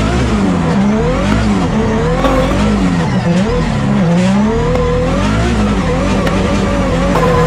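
Toyota 86 drift car powered by a Nissan GT-R R35 twin-turbo V6, drifting with its revs rising and falling over and over, about once a second, with tyres squealing.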